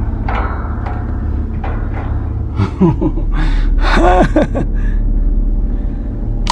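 Knocks and creaks of someone climbing up into an attic, with a few squeaky, wavering sounds in the middle, over a steady low rumble.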